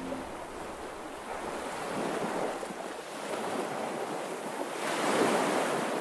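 Sea waves washing in on a shore, a noisy wash that swells and eases, with a bigger wave about five seconds in.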